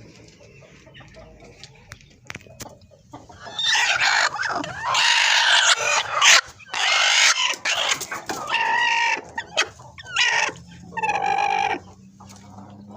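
Chickens calling, with a rooster crowing: a string of loud, drawn-out calls begins a few seconds in, then shorter calls follow and stop shortly before the end.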